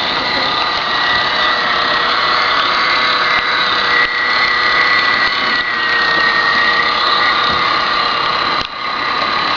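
Small electric motor of a radio-controlled amphibious truck whining steadily as it drives the propeller. The whine dips briefly near the end.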